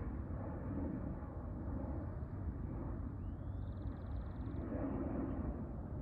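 Steady low rushing outdoor noise, with a faint bird call about three seconds in: a short rising note followed by a quick trill.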